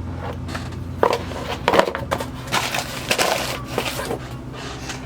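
Small cardboard parts boxes and sewing machine cords being handled: an irregular run of clicks, knocks and crinkling, mostly from about a second in.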